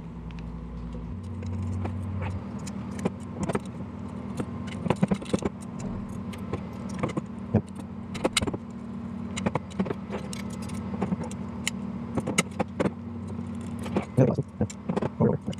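Metal BMX spokes clinking and ticking against each other and the hub as they are laced into a 36-hole hub and rim, in many short irregular clicks over a steady low hum.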